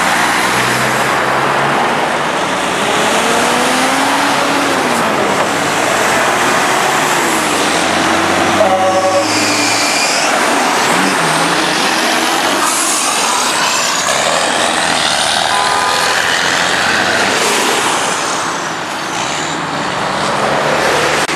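Heavy diesel trucks driving past close by, their engines pulling away and changing pitch as they run through the gears. A short horn blast sounds about nine seconds in.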